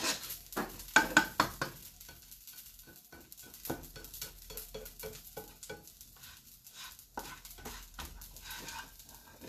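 Fideo (thin vermicelli) being stirred and turned with metal tongs in a very hot oiled skillet as it toasts: a run of scraping clicks of tongs and strands against the pan, loudest in the first two seconds, over a light sizzle.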